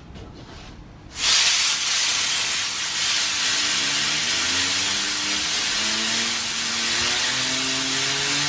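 Compressed air from an air compressor's nozzle hissing loudly, starting about a second in, as it blows a fidget spinner up to speed. From about halfway a whine from the spinning spinner rises slowly in pitch as it speeds up.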